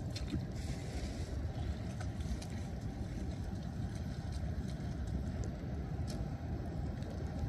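Footsteps splashing through shallow floodwater, a few short splashes, over a steady low rumble.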